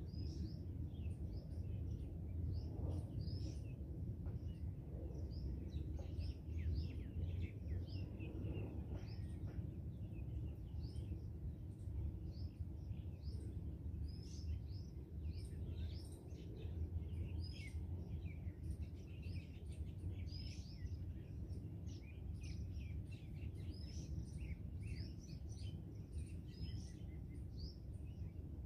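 Many small birds chirping and calling, in short, frequent notes, over a steady low background rumble.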